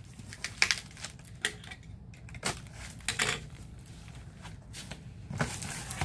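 Irregular short knocks and scrapes of hands working at the taped top of a large cardboard box.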